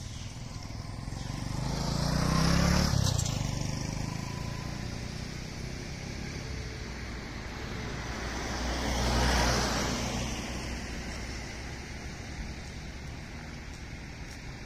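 Two vehicles passing along the road, one about two to three seconds in and another around nine seconds, each swelling up and fading away, the first with a falling pitch as it goes by.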